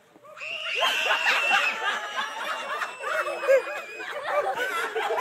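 Several people laughing together, their laughs overlapping. A high, thin steady tone runs over the laughter for about four seconds.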